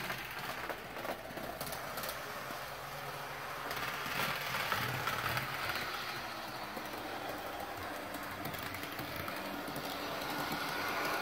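HO-scale Athearn Genesis SD45-2 diesel model locomotive running on its track: a steady whirr of the small electric motor and gears with wheel noise on the rails and occasional light clicks, swelling a little about four seconds in.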